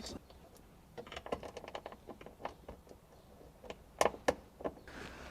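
A run of small clicks and taps from parts and tools being handled, with two louder sharp knocks a little after four seconds in.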